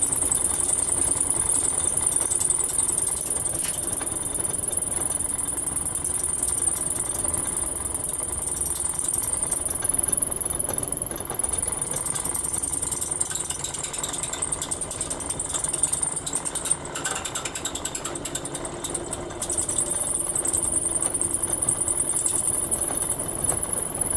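A drill bit boring out a sheared bolt in a steering gearbox casting, running continuously with a high squeal of the bit on metal. The sound briefly dips twice about two-thirds of the way through.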